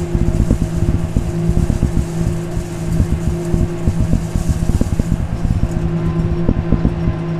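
Kubota tractor engine running at a steady speed, loud inside the cab, with a constant irregular clatter of knocks and rattles as the cab jolts over bumpy ground.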